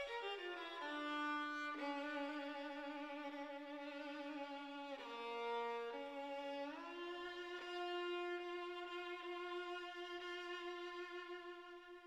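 Background music: a slow violin melody of long held notes, falling at the start and settling on one long note in the second half that fades near the end.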